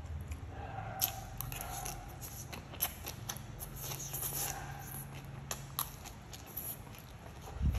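Close-up eating sounds: wet slurping and chewing as long stems of stir-fried greens are sucked into the mouth, with many small crisp mouth clicks.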